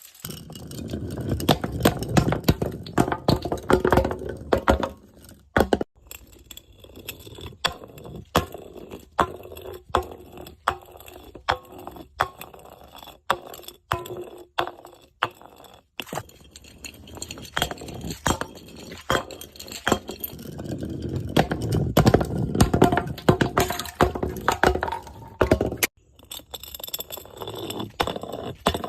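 Hard, brittle pieces being crushed and scraped, a long run of sharp cracks and clinks. The crunching thickens about a second in and again around twenty seconds in.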